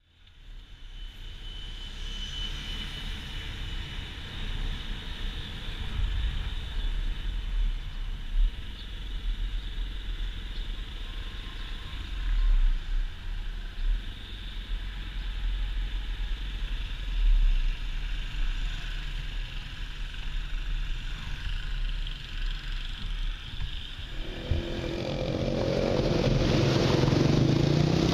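Small motorcycle riding along a street, heard from a camera mounted on the bike: wind buffeting the microphone over the engine's running, swelling in gusts. About 24 s in the sound changes to a fuller, steadier noise.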